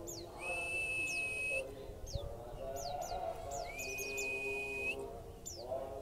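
Caged pleci (white-eye) giving short, sharp chirps that fall in pitch, several in quick succession, with two long level high whistled notes of about a second each, the first near the start and the second in the second half.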